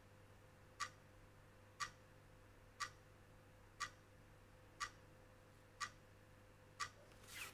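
A clock ticking steadily, one tick a second.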